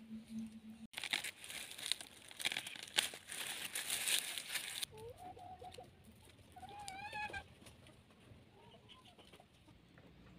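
Crackling, scraping noise of a stick raking through hot embers and ash for a few seconds, followed about halfway through by several clucking calls from hens.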